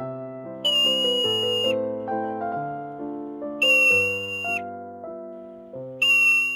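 Three long, high, steady whistles, about a second each, typical of a marmot's alarm call, over gentle piano music.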